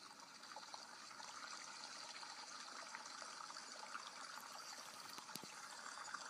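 Faint, steady running water with a trickling sound and a few tiny clicks, growing slightly louder over the first couple of seconds.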